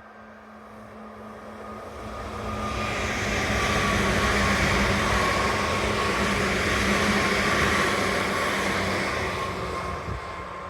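Izu Kyuko 2100-series electric train passing over a level crossing. Its running noise grows louder, is loudest from about four to eight seconds in, then fades as it goes by.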